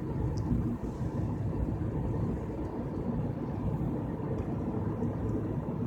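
Car driving at about 36 mph, with steady engine and tyre road noise heard inside the cabin.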